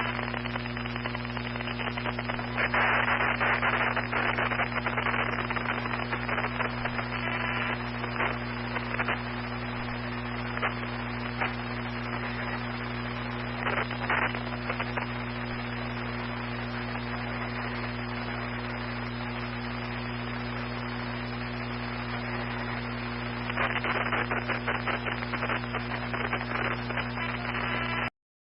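Steady static hiss over a low electrical hum, with irregular crackles and pops. It swells louder for a few seconds early on and again near the end, then cuts off suddenly.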